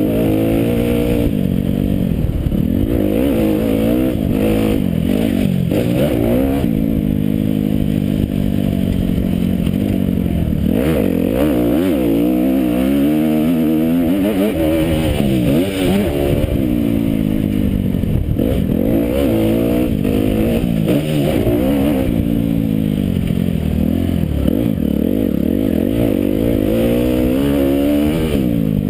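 Motocross bike engine on board, revving hard and dropping off again and again as the bike accelerates, shifts and slows around the dirt track, its pitch sweeping up and down.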